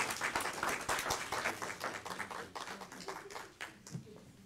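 Congregation applauding: a dense patter of many hand claps that thins out and fades away toward the end.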